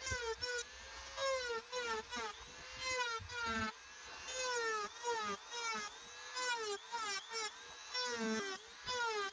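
Handheld rotary tool with a small grinding bit whining as it grinds a knife handle made of recycled bottle-cap plastic. Its pitch dips each time the bit is pressed in and rises again as it is eased off, many times over.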